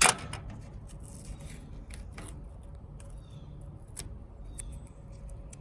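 Masking tape being pulled, torn and cut while taping over the parts of a metal tool box: a sharp snap at the start, then scattered small clicks, rustles and scrapes.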